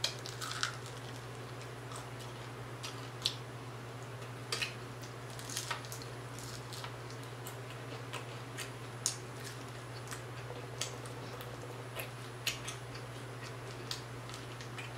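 Crispy fried whole tilapia being bitten and chewed close to the microphone: irregular, scattered sharp crunches and wet mouth clicks over a steady low hum.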